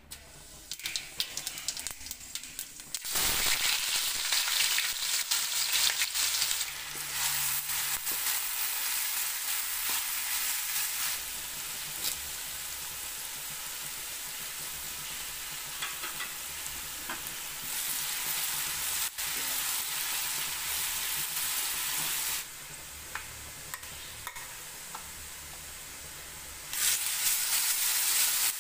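Onions, dried red chillies and curry leaves sizzling in hot oil in a metal pan while being stirred. The oil crackles lightly at first, then sizzles loudly from about three seconds in, and the sizzle changes level abruptly several times.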